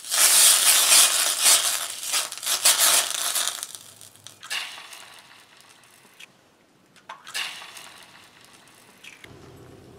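Butter sizzling and spattering in a hot frying pan as it is pushed around with a spatula, loudest in the first three seconds. Then two eggs drop into the hot fat, each setting off a fresh burst of sizzling, about halfway through and again a little after seven seconds.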